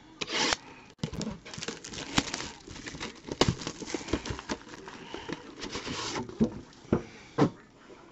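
A trading card box being unwrapped and opened by hand: crinkling and tearing of wrapping with many irregular clicks and rustles of handling.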